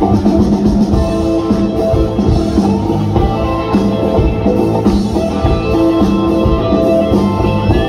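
Live band music: electric guitar and drums playing an instrumental stretch without vocals.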